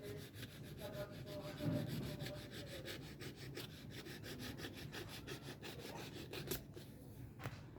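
Knife sawing back and forth through the tablet's cardboard box or packaging: a fast, even run of rasping strokes, about five a second.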